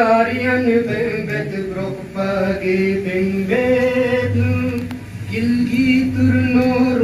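A man's voice chanting a poem in tarannum, the sung, melodic style of recitation, in long held notes with short breaks between lines.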